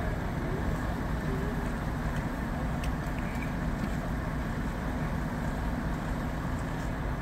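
Crane truck's diesel engine running steadily with an even low rumble while its loader crane is working.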